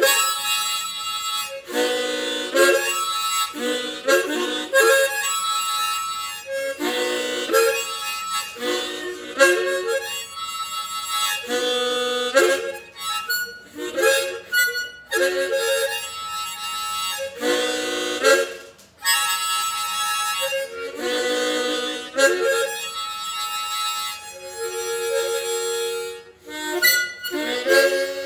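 Harmonica playing chords in short phrases, each held for a second or two with brief breaks between, as an instrumental passage at the end of a folk song.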